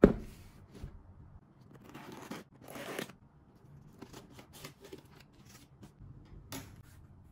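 A cardboard shipping box set down on a wooden table with a sharp knock, then scraping, rustling and small clicks as its taped flaps are worked open and the lid lifted.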